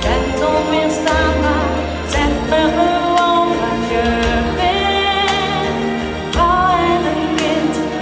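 Dutch-language pop love song performed live: a female singer holding long, wavering notes into a microphone over a backing track with a steady beat.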